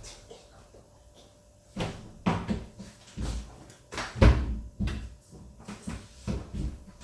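Arctic APL61015XLW0 washing machine knocking and banging as it jumps about: a string of irregular thumps, the loudest about four seconds in.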